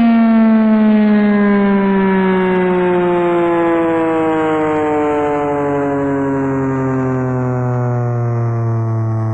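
Federal Signal 2001-SRNB outdoor warning siren winding down during a growl test. Its loud, rich tone falls steadily in pitch into a low growl.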